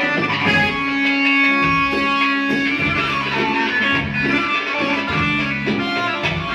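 Amplified live band playing an instrumental passage of Egyptian sha'bi music: a melodic lead line of held notes over a repeating bass pattern, with no singing.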